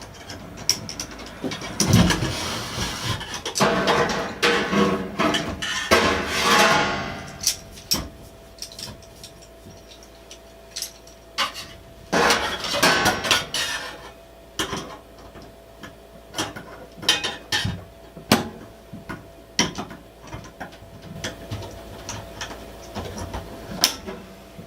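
Handling noises: many sharp knocks and clanks, with bursts of rustling and scraping about two to seven seconds in and again around twelve seconds, over a faint steady tone.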